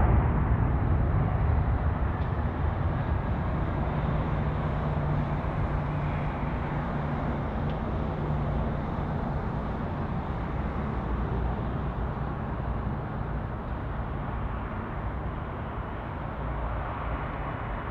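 Jet airliner's engine noise after a landing, a steady rumble with a low hum that slowly dies away.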